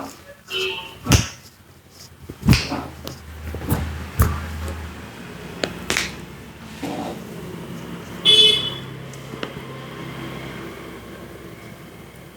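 Hands slapping and tapping during a vigorous head massage, a few sharp strikes in the first six seconds, with traffic in the background: a short vehicle horn blast a little after eight seconds in and a low engine hum.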